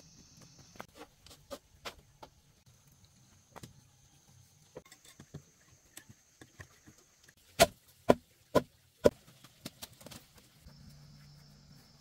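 Hammering on a bamboo door frame: scattered lighter taps, then four loud blows about half a second apart about two-thirds of the way through. Crickets trill steadily in the background.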